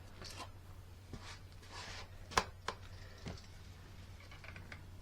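A few light knocks and clicks over a steady low hum, the sharpest about two and a half seconds in.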